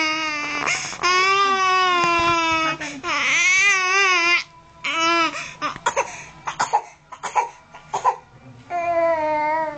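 Nine-month-old baby crying: several long wailing cries, then a stretch of short choppy sobs and gasps about halfway through, and another long wail near the end.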